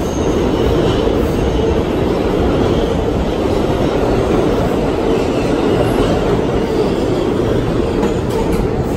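Steady, loud rumble of a vehicle in motion, continuous and unbroken.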